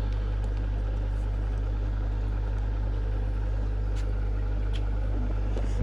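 Fishroom equipment humming steadily at a low pitch, a constant mechanical drone, with a couple of faint clicks about four and five seconds in.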